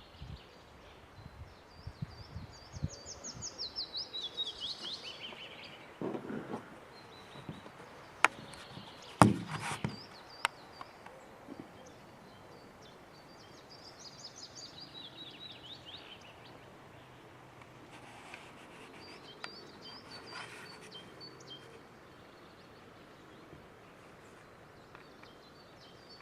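Songbirds singing outdoors: a bird twice gives a phrase of quick notes cascading down in pitch, about three seconds long, and another bird calls with short high notes later on. A few sharp knocks sound near the middle, the loudest about nine seconds in.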